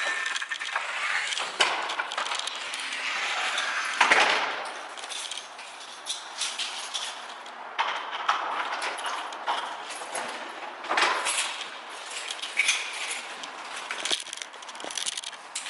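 Scattered clinks, clatters and knocks of objects being handled, with one louder bang about four seconds in.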